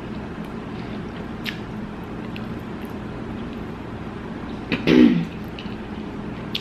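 Faint mouth clicks of someone chewing over a steady low hum, then about five seconds in a single short cough from a woman eating spicy chicken wings.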